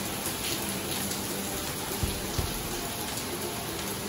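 Heavy rain falling steadily: a downpour hissing on wet pavement, with a couple of dull low thumps about two seconds in.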